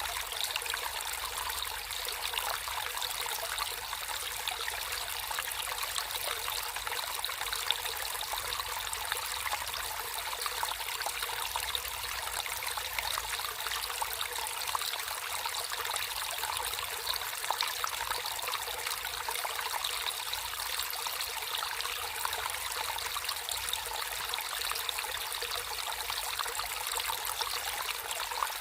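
Shallow water trickling and babbling steadily over stones in a small stream, a continuous splashing patter with no change.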